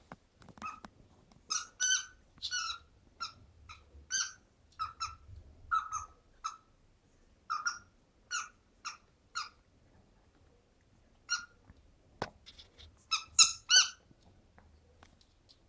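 A dog's squeaky donut toy squeaking as the dog plays with it: short high squeaks in irregular runs, about one or two a second, with a pause of a couple of seconds around the middle, a sharp click, and then a quick flurry of loud squeaks near the end.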